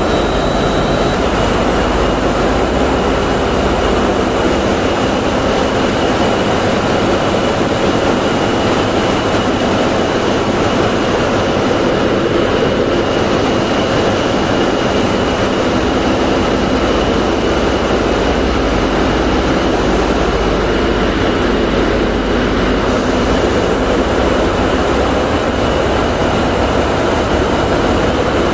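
Loud, steady din of a tugboat engine room with its diesel engines running, with a thin high whine held throughout.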